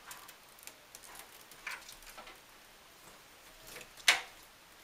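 Small plastic clicks and rustles from cable ties and cables being handled while wiring is tied down inside a PC case, with one loud sharp click about four seconds in.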